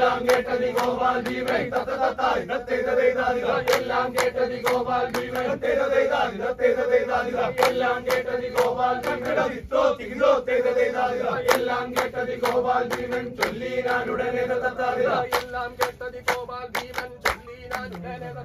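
A group of men chanting together in chorus over a steady held tone, with many sharp percussive strikes throughout.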